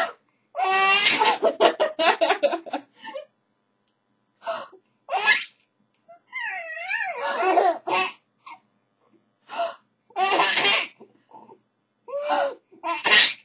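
Five-month-old baby laughing in bursts separated by short pauses, with a run of quick laugh pulses about a second in and a wavering, sliding cry-laugh a few seconds later.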